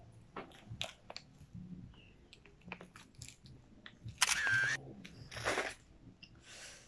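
Smartphone camera shutter sounds as selfies are taken: several short clicks, then a louder shutter burst about four seconds in and another about a second later.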